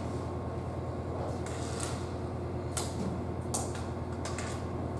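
Railway platform ambience: a steady low rumble with a few scattered light clicks and knocks.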